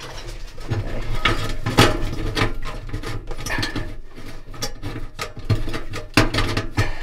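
Irregular metal clicks, knocks and scrapes from hands working parts at the main bearing hub in the centre of a Fisher & Paykel dryer's stainless steel drum, with a low steady hum underneath.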